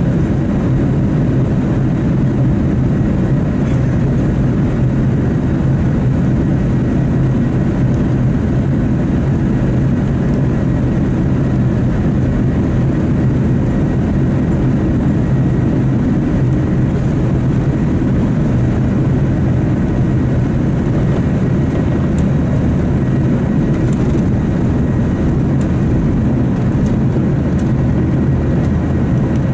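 Jet engines of a Boeing 737 heard from inside the cabin during the takeoff run: a loud, steady rumble with a low hum running underneath.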